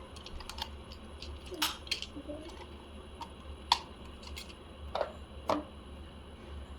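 Plastic toy parts of a Rusty Rivets Blaster Tank building set clicking and knocking as they are fitted together by hand. There are a handful of separate sharp clicks, the loudest a little past the middle.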